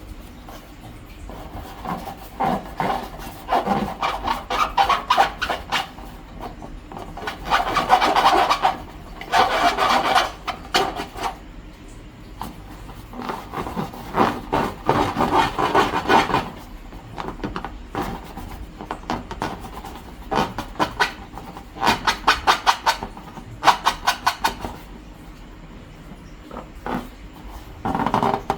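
Slime being squeezed and worked by hand: bursts of rapid sticky crackling and squelching, each lasting a few seconds, with short pauses between.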